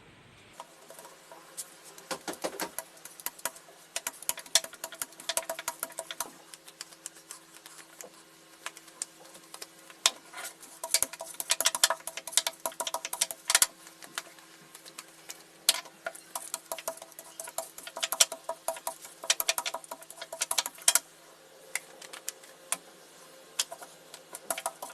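Light, irregular tapping and patting of hands working bread dough on a kitchen surface, coming in clusters, over a faint steady hum.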